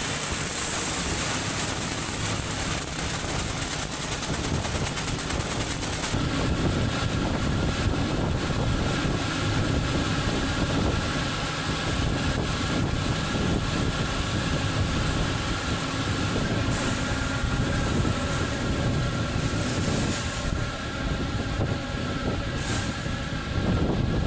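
Heavy farm machinery running steadily during corn harvest. About six seconds in, a high hiss stops and a steady mechanical whine comes in over the running engine noise.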